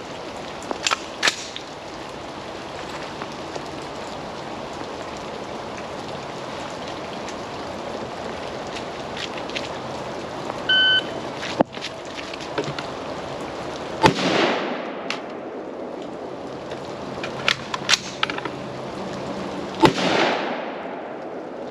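AR-15 rifle drill in steady rain. About eleven seconds in, a shot timer gives one short electronic beep. About three seconds later a single rifle shot rings out with a long echoing tail, and a second shot follows nearly six seconds after it. Between the shots come a few sharp clicks and clacks of the reload.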